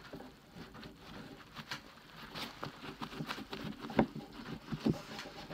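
Wax candle being rubbed and burnished into a cloth glove's fingers: irregular scratchy rubbing with small clicks, and two sharper knocks about four and five seconds in.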